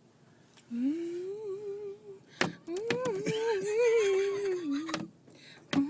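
A person humming two long, slightly wavering notes, with a sharp click between them.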